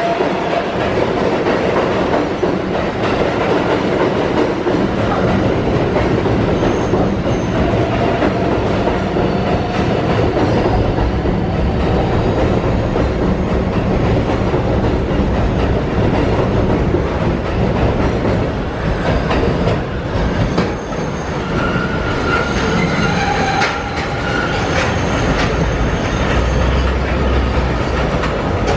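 R188 subway train of the 7 line pulling out along elevated track, its cars rumbling and clattering past close by. In the second half, thin high wheel squeal joins the clatter.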